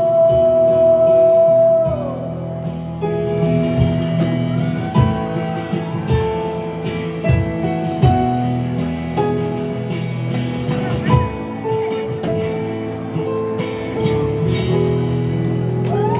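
Live band music: a singer holds a long final note for about two seconds, then the band plays an instrumental passage of guitar and keyboard chords with a moving melody line and drum hits.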